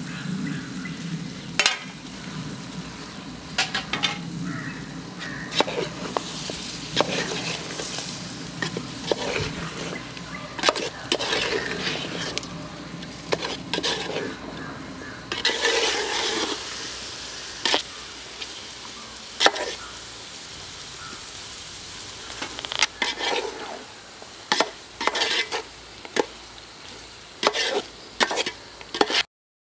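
Food frying in a pan, stirred with a spoon: repeated scrapes and clinks against the pan over a steady sizzle. The sound cuts off suddenly near the end.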